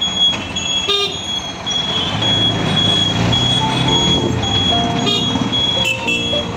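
Ride in an auto-rickshaw through city traffic: its engine and the surrounding traffic run steadily, with vehicle horns honking about a second in and again near the end.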